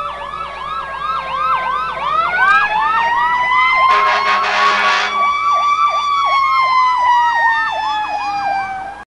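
Emergency vehicle sirens: a fast yelp sweeping up and down about four times a second over a slower wail that climbs about two seconds in and falls away toward the end. A loud, noisy blast lasting about a second comes about four seconds in.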